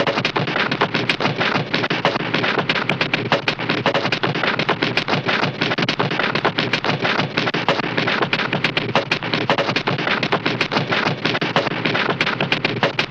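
A dense, unbroken clatter of many rapid sharp cracks, at a steady loudness throughout.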